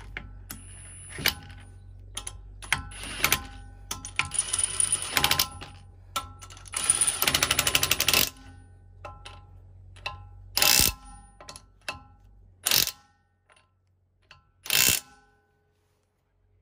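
HiKOKI cordless impact tool hammering as it runs lug nuts onto a car wheel: two longer bursts of rapid impacts around four and seven seconds in, then three short bursts later on, with clinks of the socket and nuts in between.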